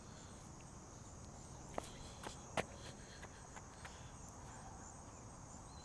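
Faint outdoor ambience: a steady high-pitched drone, with a few short sharp taps a couple of seconds in.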